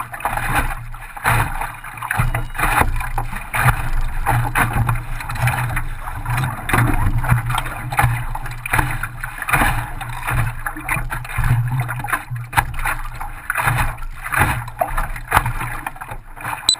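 Water slapping and splashing against the hull of an Optimist sailing dinghy under way, with frequent irregular knocks and a constant wash.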